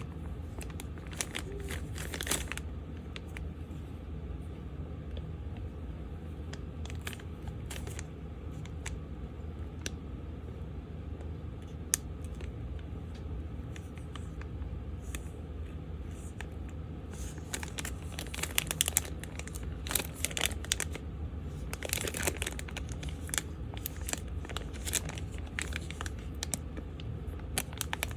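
Packaging being handled and torn open, crinkling and tearing in scattered short rustles and clicks that are busiest about two-thirds of the way through, over a steady low hum.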